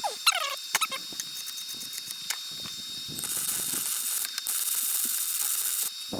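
A welding arc crackling and hissing for about three seconds, starting and cutting off abruptly with a short break in the middle. Just before it, near the start, come a couple of short falling squeals.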